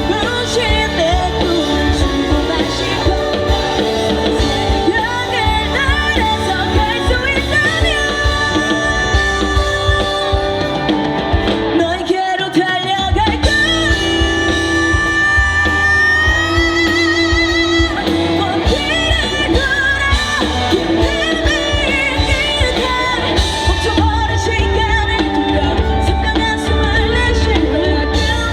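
A woman singing lead over a live pop-rock band with guitar. About twelve seconds in the bass drops out briefly, and soon after a long held note rings out before the full band continues.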